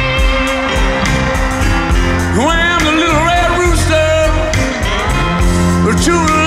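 Live electric blues band of several electric guitars, bass and drums playing, with a male lead singer coming in about two seconds in, his voice sliding up into the notes.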